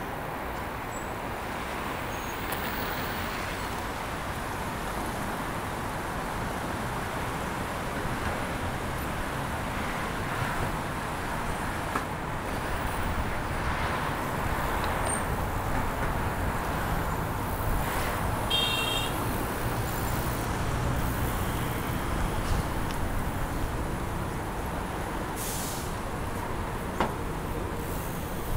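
Steady city street traffic noise from passing vehicles. About two thirds of the way in there is a short run of high beeps, and near the end a brief high hiss.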